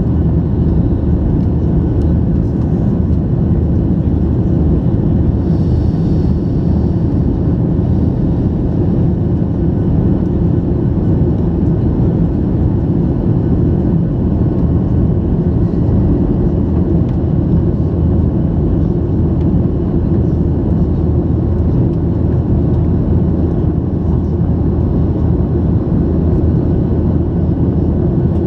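Steady, loud cabin roar of a Boeing 737-800 in flight: its CFM56-7B jet engines and the rush of air past the fuselage, heard from inside the cabin.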